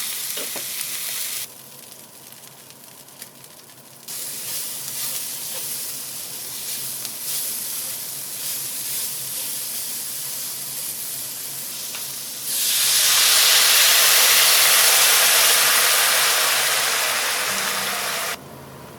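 Beef sizzling in a hot pan. About twelve seconds in, a much louder, steady hiss starts, lasts about six seconds, then cuts off.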